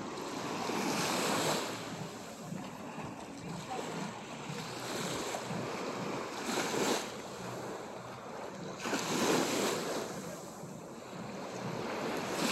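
Small waves washing onto a sandy shore, swelling three times a few seconds apart.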